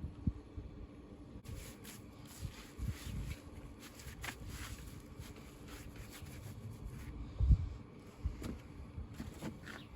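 Faint scattered scrapes and light knocks of stones being shifted and set on a stone wall, with one heavier thump about three-quarters of the way in.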